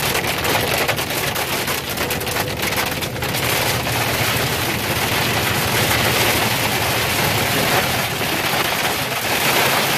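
Sleet rapidly ticking on a Suburban's windshield, densest in the first three seconds, over steady tyre and road noise on a wet road inside the moving cabin.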